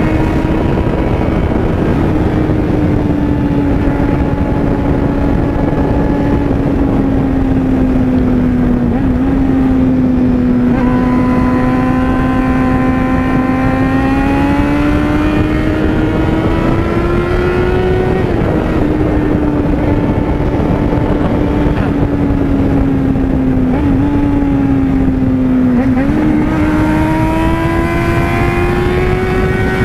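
Yamaha 600 cc inline-four motorcycle engine pulling hard at high revs, heard from on board the bike. The pitch sags and climbs as the throttle is rolled off and back on through the curves. There are quick gear changes about nine seconds in and again near 24 and 26 seconds, each followed by the engine revving up once more.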